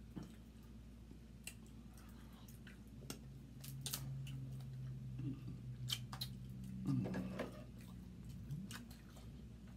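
Eating crab legs: scattered sharp clicks and cracks of shell being broken and pulled apart, with wet chewing. A long closed-mouth 'mm' hum runs through the middle.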